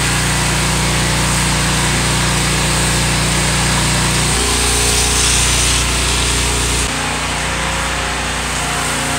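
Pressure washer running: a steady engine hum under the hiss of the wand's spray on siding and window glass. The hum shifts twice, about four and seven seconds in.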